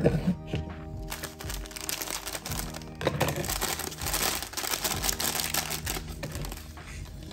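Foil-lined pouch of green tea mix crinkling as it is handled and squeezed, loudest in the middle. A short knock at the very start, over background music.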